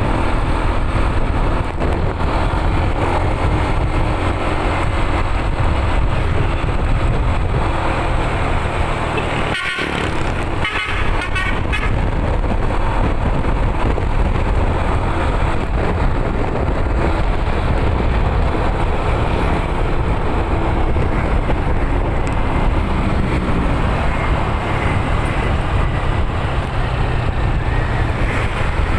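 Bus running along the road with a steady low rumble of engine and road noise. About ten seconds in, its telolet horn sounds a short run of quick, stuttering musical tones.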